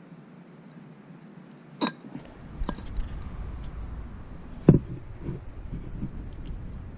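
A few scattered light clicks and knocks from handling the oil filter caps while measuring them, the sharpest about two-thirds of the way through, over a low rumble that begins about two seconds in.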